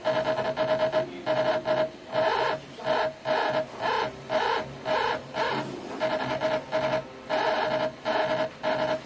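Stepper motor jogged in short repeated moves by the SMC5-5-N-N CNC controller: a buzzing whine that starts and stops two or three times a second as the Y axis is stepped along.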